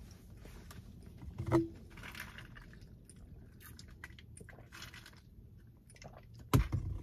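Quiet chewing and mouth sounds from a person eating the last of a fried chicken sandwich, with sips through a straw from a plastic cup. Small clicks run through it, with a short louder sound about a second and a half in and a few sharper clicks near the end.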